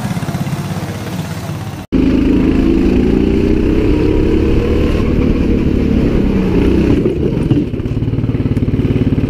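270 cc racing kart engine. It is first heard from beside the track as a kart passes, then, after an abrupt cut, up close from on board: it revs up for a few seconds and then runs steadily at speed with a fast, even pulsing beat.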